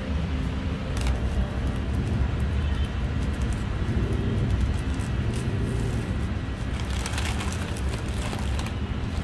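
Steady low rumble of road traffic, with a paper burrito wrapper rustling as it is unwrapped, mostly in the last couple of seconds.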